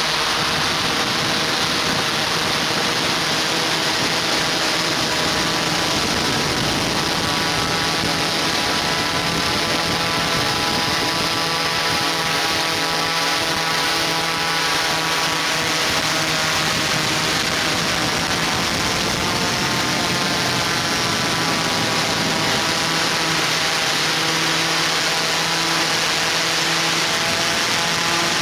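Multirotor camera drone's motors and propellers humming steadily, several pitches drifting slightly up and down over a windy hiss.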